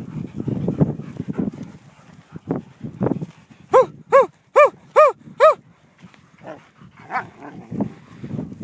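A dog barks five times in quick, even succession about halfway through, each bark a clear, ringing call that rises and falls in pitch. Before the barks there is low, rough rumbling noise, and a few fainter calls come near the end.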